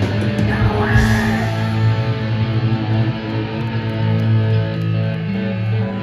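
Hardcore punk band playing live, led by distorted electric guitar with bass underneath and no singing; held chords change every second or two.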